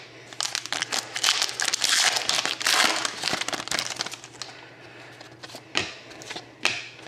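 Foil wrapper of a Panini Contenders hockey card pack crinkling as it is torn open and the cards are pulled out, for about four seconds. Two short taps follow near the end as the cards are handled.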